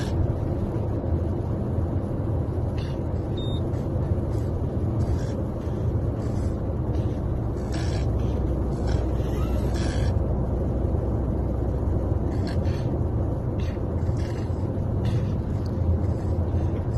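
Steady low rumble of car road noise heard from inside the cabin while driving, with a few faint ticks over it.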